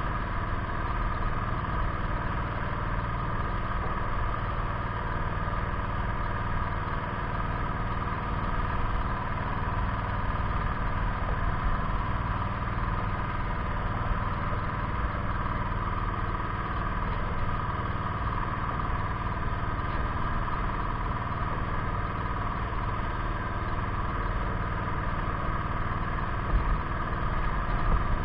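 An engine running steadily at idle, an even hum that does not change.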